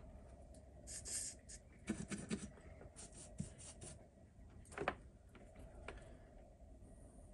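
Small parts being handled on a workbench: scattered rustling and light clicks, with a sharper knock about five seconds in, over a faint steady hum.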